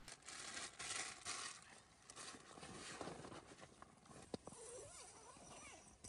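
Plastic bag crinkling and rustling as it is handled, in irregular bursts that are loudest in the first second and a half, with a sharp click about four and a half seconds in.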